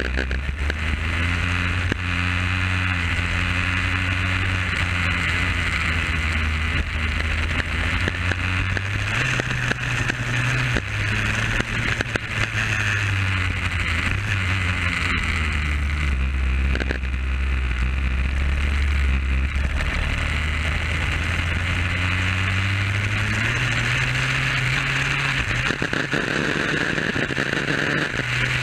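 Superkart's two-stroke engine heard from on board at speed, its note rising and falling with the throttle and stepping through gear changes. A steady rush of wind runs over it. The engine is being run in.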